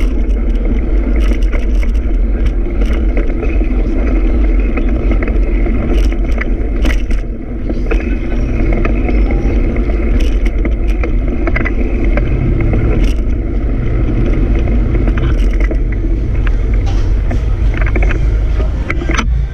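Wind rushing over the microphone of a camera riding along on a moving bicycle, together with the bike's road noise. The sound is steady and loud, with scattered clicks and knocks.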